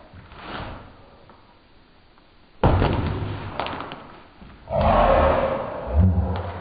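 Large cardboard shipping box, double-boxed around a PC in foam and bubble wrap, being tossed and caught: two heavy thuds about two seconds apart, the first sudden and sharp, the second longer and rustling.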